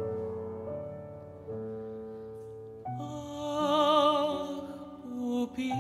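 Piano playing soft, held chords; about three seconds in, a classically trained woman's voice enters and sings a sustained line with wide vibrato over the piano.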